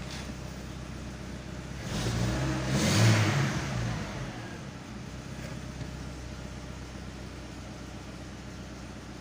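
Skoda Octavia engine running just after starting: it idles, is revved once about two to three seconds in, and settles back to a steady idle.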